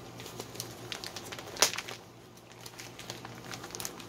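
Clear plastic packaging of a cross-stitch kit crinkling and rustling as it is handled, with scattered light clicks and one sharper tap about one and a half seconds in.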